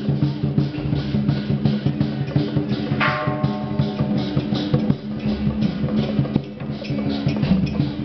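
Chinese dragon-dance percussion: drums and cymbals beating rapidly over steady sustained tones, with a brief higher note about three seconds in.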